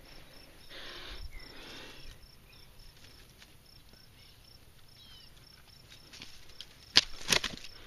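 Rustling of dry grass and scraping among rocks as a dropped largemouth bass is grabbed by hand, with a couple of sharp crackling snaps near the end. Under it an insect chirps in a steady, even pulse.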